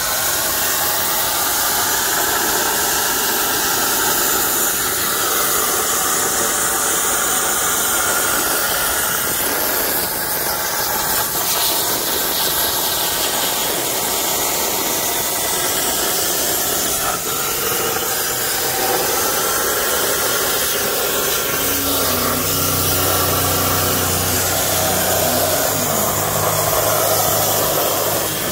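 Plasma torch on a Langmuir CrossFire Pro CNC table cutting stainless steel sheet: a steady, loud hiss of the arc and air jet. A low steady hum joins about three-quarters of the way through.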